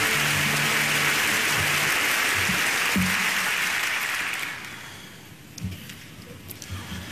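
Audience applause over walk-on music. The music's held notes stop about two seconds in, and the applause dies away about four and a half seconds in, leaving a few soft thumps.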